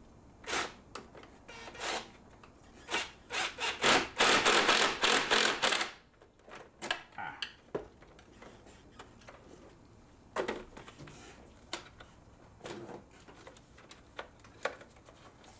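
Cordless impact driver hammering in a few short bursts and then for about two seconds, driving the intake boot's hose clamp so tight that the clamp breaks. Scattered clicks and rustling of hands working at the clamp follow.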